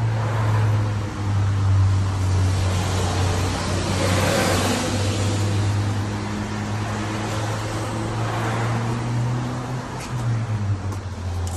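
Two cars pass by on a wet street, their tyre hiss swelling and fading one after the other, over a steady low hum.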